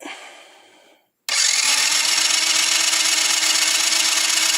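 Kazuma Meerkat ATV engine turned over by its electric starter with the spark plug out and a compression gauge fitted, for a compression test. The starter whine and the engine's even cranking beat start about a second in and hold steady.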